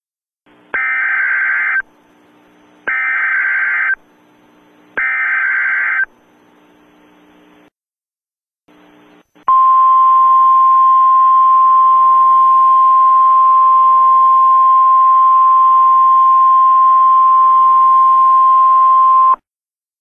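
Emergency Alert System SAME header: three warbling digital data bursts about a second long each, with faint hiss between them, then a single steady 1050 Hz warning alarm tone held for about ten seconds. It is the attention signal that opens a tornado warning broadcast.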